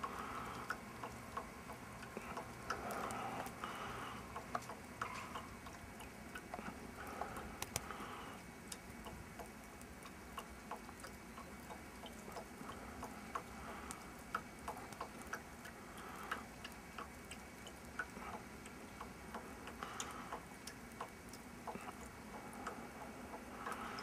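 Heavy wet snow falling, heard as faint, irregular ticking and pattering as the flakes land.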